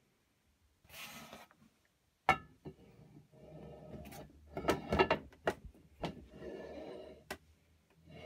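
Movable jaw of a Record No. 5 vise being slid into the vise body, steel sliding and scraping on metal, with several knocks and a sharp ringing clank a little after two seconds in.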